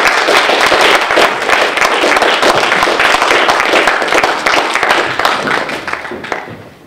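Audience applauding, many hands clapping, the applause dying away near the end.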